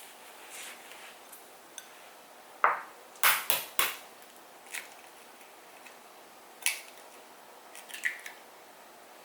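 Kitchen clatter: a few separate clinks and knocks of dishes and utensils against quiet room tone, the loudest run of four about three seconds in and single ones later.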